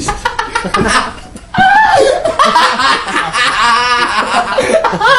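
A group of young people laughing and chattering together, getting louder about a second and a half in, with one run of quick ha-ha-ha laughter later on.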